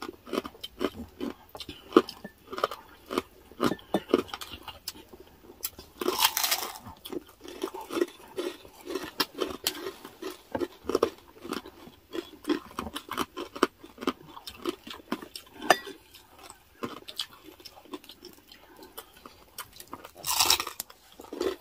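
Close-miked crunching and chewing of crispy chicharon bagnet (deep-fried pork rind): a steady run of crisp cracks, with two louder crunching bites, about six seconds in and near the end.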